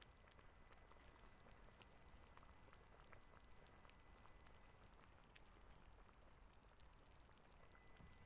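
Near silence, with faint, scattered small ticks.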